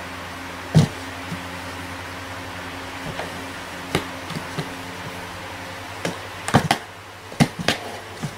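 Cat rummaging inside a cardboard box: sharp taps and knocks of its paws and body against the cardboard, one loud knock about a second in and a quick cluster near the end, over a steady low hum.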